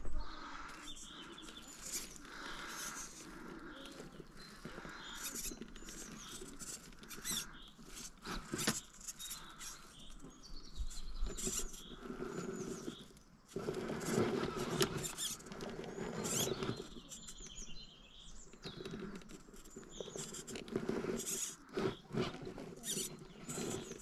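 Electric RC rock crawler working its way up rock: the motor and gears whine in short stop-and-go spurts while the tyres scrabble, click and knock on stone and loose grit. The activity grows busier about halfway through.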